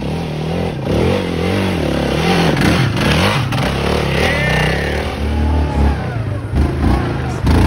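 Dirt bike engine revving up and down as it is ridden through soft sand, with a quad bike's engine near the end.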